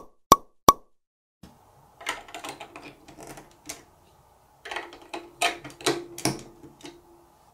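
Large plastic toy building blocks being handled and snapped together. Two sharp clicks come about a third of a second apart, then a run of irregular plastic clattering and clicks, with a brief squeaky rub as a block is pressed onto the studs near the end.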